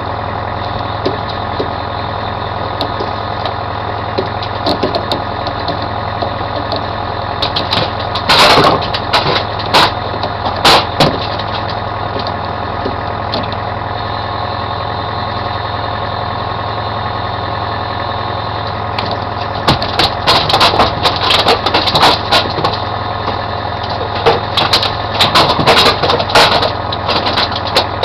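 Fishing boat's engine running steadily at trolling speed, with sharp clicks and knocks from fishing gear being handled: a few about a third of the way in, then a dense clatter over the last third.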